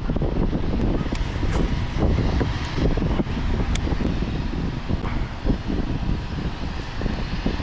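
Wind buffeting the microphone: a loud, gusty low rumble with no break.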